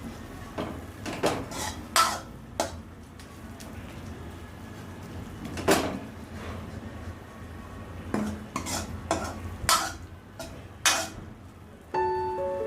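A metal spoon clanking and scraping against a metal cooking pot, about a dozen irregular knocks with short ringing. Piano music comes in near the end.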